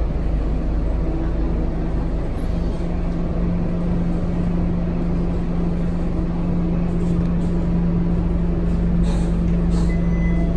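Scania K230UB city bus's diesel engine running with a steady low hum and rumble, heard from inside the passenger cabin. Near the end come a couple of brief hisses and a short high beep.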